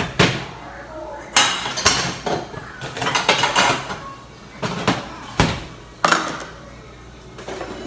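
Kitchen dishes and utensils clattering and clinking as they are handled and set down, in a string of separate knocks.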